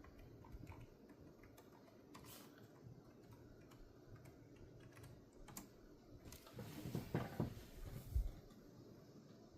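Faint, scattered keystrokes on a laptop keyboard, as at a Windows login. About seven to eight seconds in there is a louder short low rumble and a thump.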